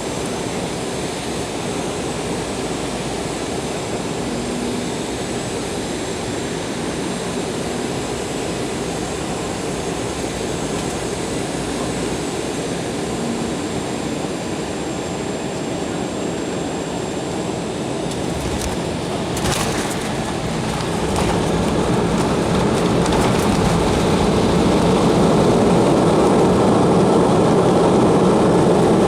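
Embraer 190 jet airliner landing: a steady rush of engine and airflow noise, then a few sharp knocks about two-thirds of the way through as the wheels touch down. After that the noise swells and stays louder as the engines spool up for reverse thrust and the aircraft brakes on the runway.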